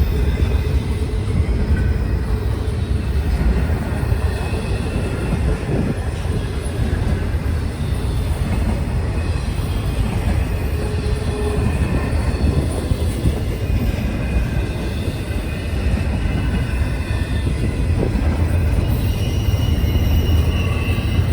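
Train passing, a steady, heavy rumble of railcars rolling by, with faint high-pitched squealing tones coming and going that grow a little stronger near the end.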